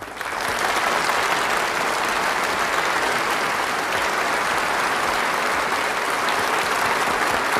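Audience applauding: dense, even clapping that swells up at the start and then holds steady at one level.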